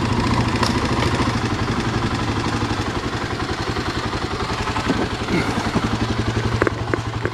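Kawasaki dirt bike engine running at low speed with a steady, even beat.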